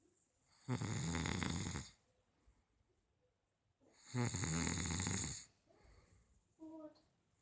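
A sleeping person snoring loudly: two long snores, each over a second long and about three seconds apart, with quiet breathing pauses between them and a short faint sound near the end.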